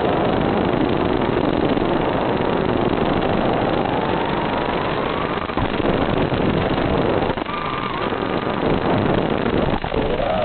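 FPV quadcopter's motors whining over a steady hiss, the pitch rising and falling with the throttle.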